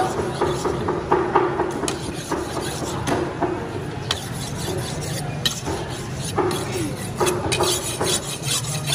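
Large curved fish-cutting knife being sharpened on a flat whetstone: repeated scraping strokes of the steel blade across the stone, coming quicker near the end.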